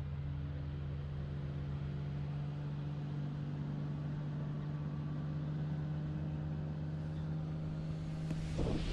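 Tow boat's engine running steadily at a constant high throttle, a continuous hum across the lake as the boat pulls the tow line out. About eight and a half seconds in, a rush of wind and rustling on the microphone joins it as the paraglider is pulled into launch.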